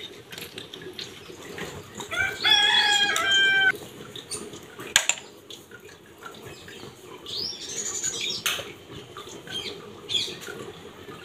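A drawn-out domestic animal call about two seconds in, lasting over a second, with a fainter high call later on. A few sharp clicks come from snail shells being handled and picked apart by hand.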